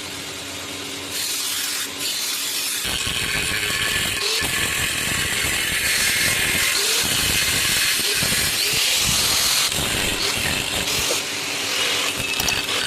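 Handheld power tool working on the rusted steel of an old cleaver: a steady, harsh, hissing grind with uneven low thumps from about three seconds in as the tool bears on the metal.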